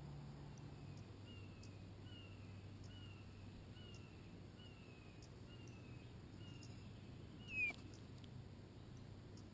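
A songbird repeating a faint short descending call note about three times every two seconds, then one louder sharp chirp with a click near the end.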